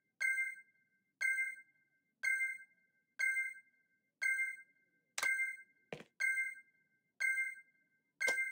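Electronic beep, two notes sounded together, repeating once a second, nine short beeps in a row, with a couple of sharp clicks around six seconds in and near the end.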